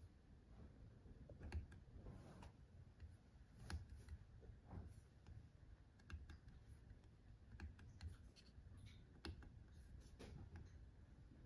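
Faint scattered clicks of a laptop trackpad, some in quick pairs, as folders and files are selected, over a low room hum.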